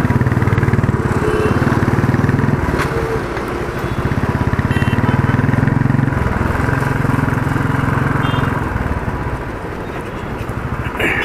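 Motorcycle engine running under way in traffic, the note easing off briefly a few times, with road and wind noise.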